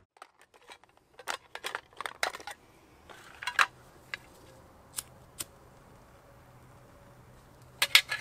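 Scattered small metallic clicks and scrapes of a knife and a metal tin being handled beside a small folding steel twig stove, denser in the first few seconds. Near the end there is a quick cluster of three or four sharp, louder scrapes.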